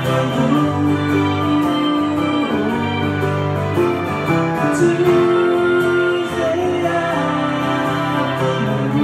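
Live band playing a soft-rock song on keyboard, acoustic guitar and electric guitar, with a man singing.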